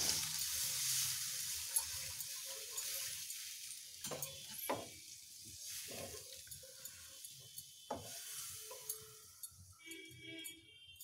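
Water just added to hot frying spice paste in a pan, the sizzle fading over the first few seconds, with a wooden spatula stirring and knocking against the pan a few times.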